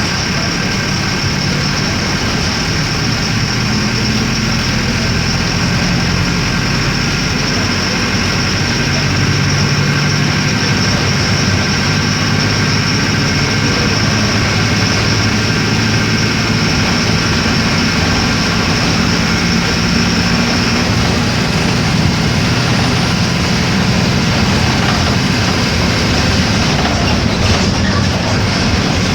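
Mercedes-Benz OF-1418 bus's six-cylinder diesel engine running steadily, its note shifting slightly in pitch now and then, with a constant hiss above it.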